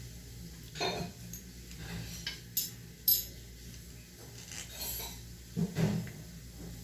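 Hard objects, tools and parts, clinking and knocking as they are handled, with several sharp clinks in the middle and a double knock near the end, over a low steady hum.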